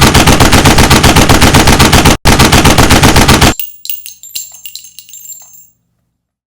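Machine-gun fire, a rapid even burst of about ten shots a second with a brief break, cutting off sharply about halfway through. Fainter scattered metallic clinks and rattles follow and fade out, then silence.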